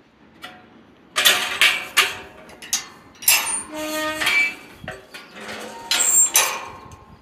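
A galvanised steel kissing gate being swung and pushed through. It clangs against its metal rails and post several times, starting about a second in, and each knock rings briefly.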